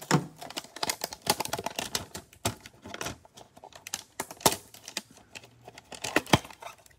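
Plastic shrink-wrap being peeled and crinkled off a cardboard trading-card hanger box by gloved hands, with the box knocking and rubbing in the hands: an irregular run of crinkles and sharp clicks.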